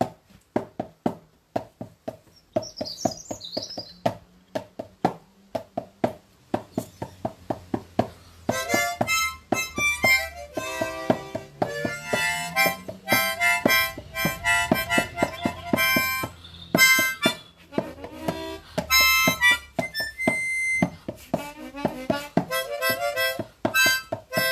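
Music: a steady percussive beat on its own for about the first eight seconds, then a harmonica joins, playing chords over the beat.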